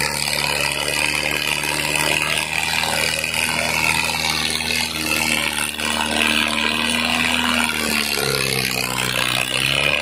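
Mahindra Arjun 555 DI tractor's diesel engine running under heavy load as it hauls a fully loaded soil trolley through soft sand. The engine note holds steady, then sags and picks up again about eight seconds in.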